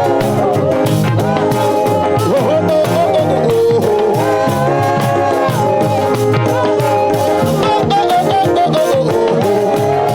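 Live church praise band playing an upbeat gospel song, with sustained melody lines over a steady beat.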